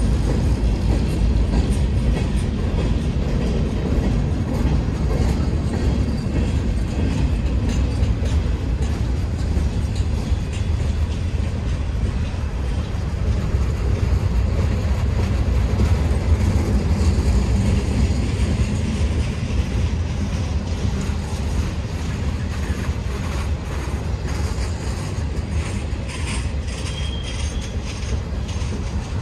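Freight cars of a mixed freight train rolling past close by: a steady low rumble of steel wheels on rail, with a running clatter of clicks and rattles from the wheels and cars.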